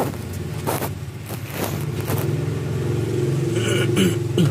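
A motor vehicle's engine running steadily, growing louder over the second half, with a few sharp clicks over it.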